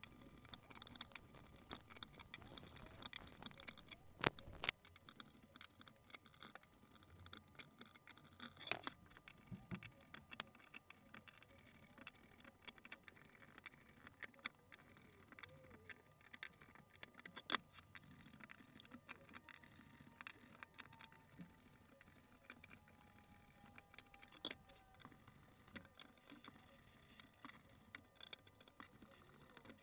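Faint, scattered clicks and scrapes of a hand countersink tool being worked into screw holes in a wooden chair frame, with a few sharper clicks among them.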